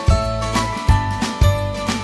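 Background music with a steady beat, about two beats a second, over a low bass line and a high melody.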